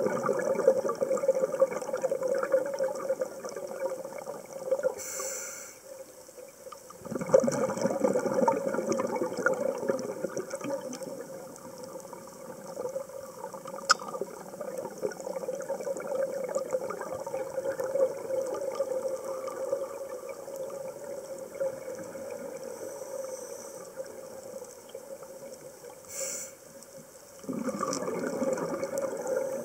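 Underwater sound of a scuba diver breathing through a regulator: a short hiss on the inhale about five seconds in and again near the end, each followed by a long rush of exhaled bubbles, over a steady hum.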